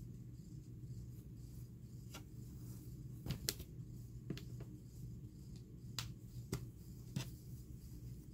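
Plastic snaps clicking shut one at a time, about eight sharp clicks a second or so apart, while terry cloth towels are handled, over a low steady hum.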